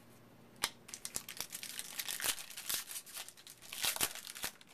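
Foil wrapper of a trading card pack crinkling and tearing as it is ripped open by hand, a quick run of sharp crackles that starts about half a second in.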